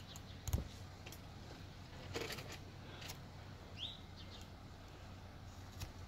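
A V-tool chisel cutting into basswood by hand: a few short, faint scrapes and clicks. A single short rising bird chirp comes about four seconds in, over a low steady outdoor background.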